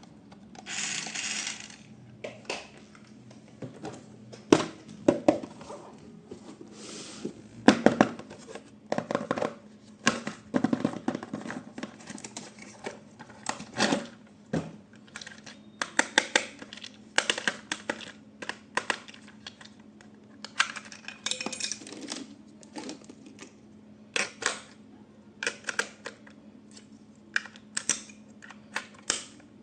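Hard plastic toy parts and packaging being handled: irregular clicks, taps and clatters, with a few short rustles, over a faint steady hum.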